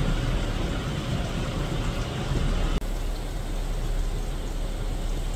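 Steady outdoor rain noise over a low rumble. About three seconds in, the sound drops out for an instant and comes back thinner and softer.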